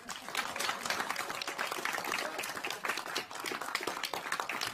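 Applause: a group of people clapping.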